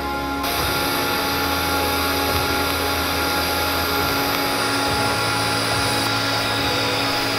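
TIG welding arc on steel: a steady buzzing hiss with a low hum that starts abruptly about half a second in.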